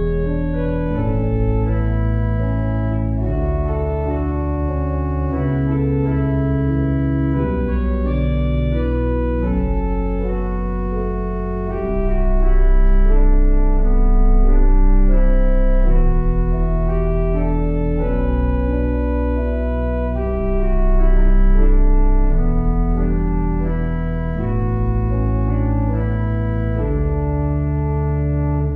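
Organ music: slow, held chords over a deep bass line, changing every second or two and swelling louder twice.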